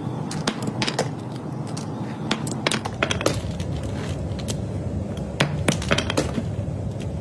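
Irregular sharp clicks and knocks, about fifteen of them at uneven intervals, over a steady low hum.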